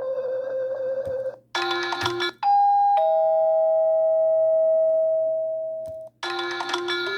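Huawei Ascend Y300 stock ringtones played one after another. A buzzing, trilling ring tone cuts off about a second and a half in, followed by a brief many-note burst. Then comes a two-note ding-dong chime, a higher note and then a lower one held for about three seconds and fading. Another melodic ringtone starts near the end.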